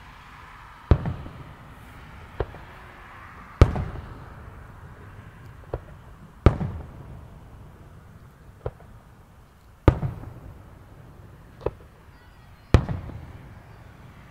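Aerial firework shells bursting: five loud booms about three seconds apart, each trailing off in an echoing rumble, with a smaller, sharper pop about a second before most of them.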